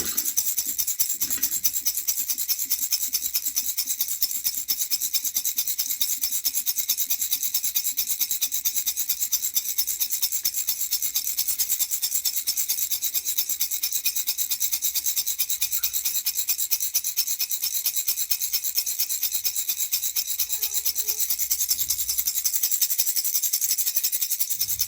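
Baby rattle (jhunjhuna) shaken steadily and fast, a continuous high-pitched rattling of quick, even strokes.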